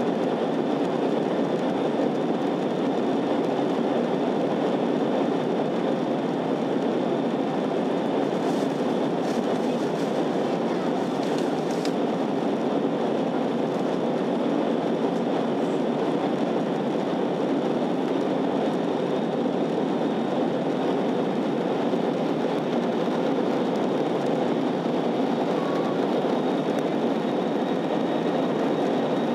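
Steady cabin noise of an Airbus A321-211 in flight, heard from a seat beside the wing: the even rush of airflow and its CFM56 turbofan engines, with a faint steady high tone over it.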